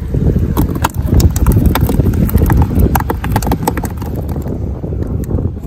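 Freshly caught tamban flapping in a cooler box, a quick, irregular run of sharp taps against its sides. Heavy wind buffeting rumbles on the microphone underneath.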